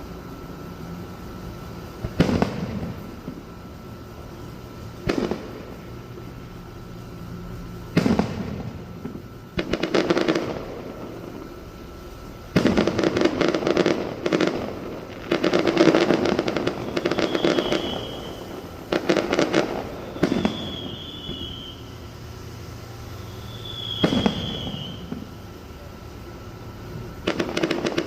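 Fireworks going off: single sharp bangs every few seconds, broken by several dense runs of rapid crackling reports through the middle.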